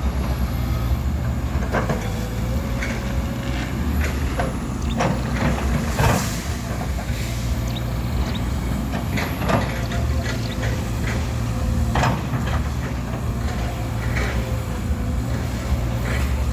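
Excavator's diesel engine running steadily under load, with repeated sharp cracks and knocks as it fells and breaks up oil palm trunks.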